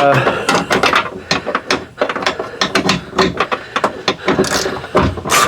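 Ratchet wrench clicking in short, irregular runs while loosening the T30 Torx bolts that hold a window regulator in a van door.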